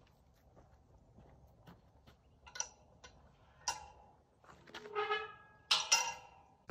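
Soft footsteps, then a tubular steel field gate being worked: a couple of metallic latch clicks, a brief metal ring, and two sharp clanks near the end.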